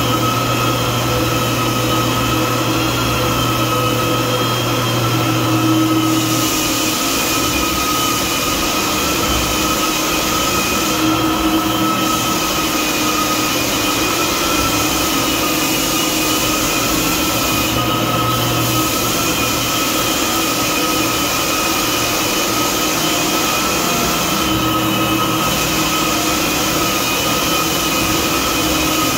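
Electric floor sanders running steadily on new hardwood: a handheld edger working along the wall, with a walk-behind floor sander. It is a continuous motor whine and sanding hiss, and the hiss shifts every few seconds as the machines move.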